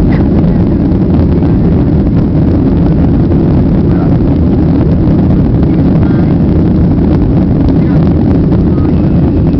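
Boeing 737 jet engines running with a loud, steady low rumble during departure.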